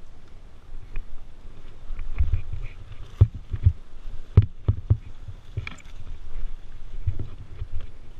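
Dirt bike riding over rough ground: a low rumble with irregular knocks and thumps, a cluster of sharp knocks near the middle.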